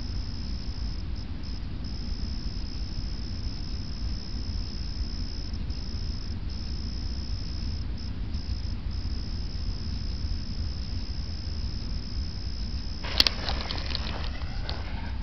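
Crickets chirping steadily in the night. About 13 seconds in, an aerial firework shell bursts with one sharp bang, followed by crackling as its stars spread.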